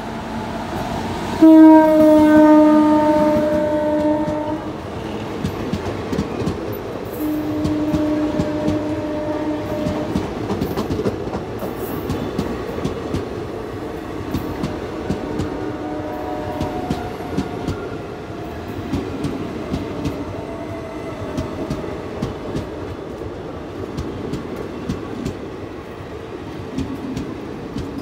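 Electric locomotive horn sounding as an express train runs into the platform. A loud blast starts about a second and a half in and lasts some three seconds, then shorter blasts follow around seven and fifteen seconds in, over the steady rumble and clickety-clack of coaches rolling over the rails.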